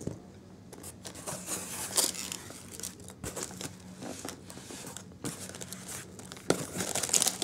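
Hands rummaging through foam packing peanuts and handling a clear plastic bag of parts in a cardboard box: irregular rustling and crinkling, with a sharp click right at the start.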